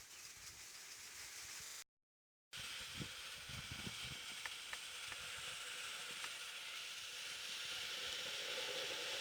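Wood fire burning in a Dakota fire hole: a faint steady hiss of flame with a few small crackles. The sound drops out completely for about half a second around two seconds in.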